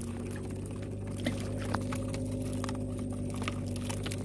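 Small engine running steadily, a low even hum with a constant pitch, with a few faint clicks near the crate.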